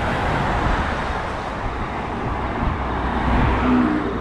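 Road traffic: a steady rush of passing vehicles with a low rumble, with a steady low hum coming in near the end.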